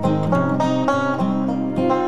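Instrumental background music of plucked strings playing a steady, lively rhythm of short notes.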